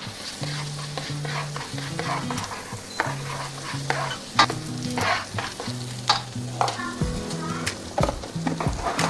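Garlic sizzling in hot oil in a pan while it is stirred, with repeated short scrapes of the utensil against the pan.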